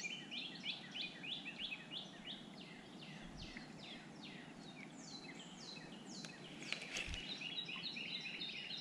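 A bird calling in a long run of short chirps, each falling in pitch, about four a second, with some longer, higher falling notes in the second half.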